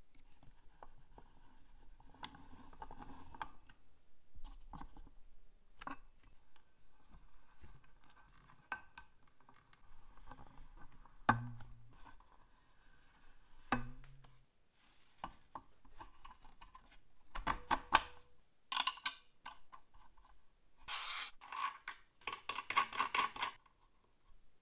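Scattered clicks and taps with some scraping of small hard parts being handled, and a few louder rasping bursts near the end.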